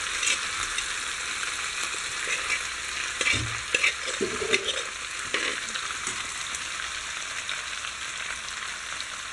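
Pre-cooked beef frying in oil with onions and curry leaves, a steady sizzle, while a metal spoon stirs it in the pan with several scrapes and knocks in the middle.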